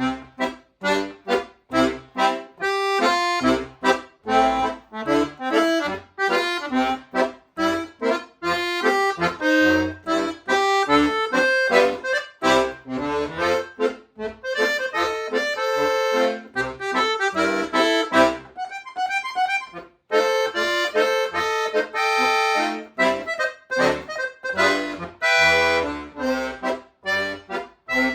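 Solo accordion playing a lively piece in short, detached notes and chords, starting suddenly out of silence. About two-thirds of the way through, the low notes drop out for a moment under a quick run of light high notes.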